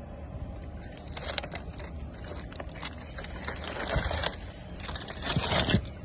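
Aluminium foil crinkling and crackling as it is peeled off the sealed rim of a dum biryani pot, breaking the dum seal. It comes in irregular bursts that grow louder in the second half.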